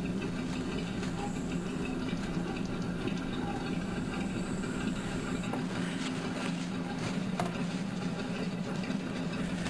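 A steady low mechanical hum, unchanging throughout, with no distinct strokes or impacts.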